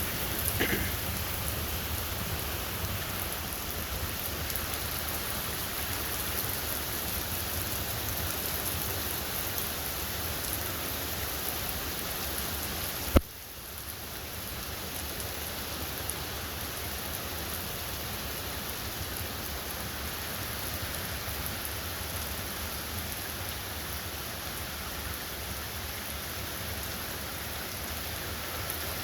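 Steady rain falling in a downpour, an even hiss of drops. About halfway through there is a single sharp click, after which the rain sounds a little quieter.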